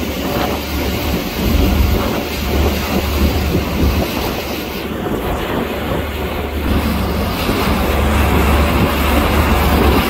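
A motorboat running underway on choppy water: a low engine drone that swells and fades, under a steady rush of water and wind.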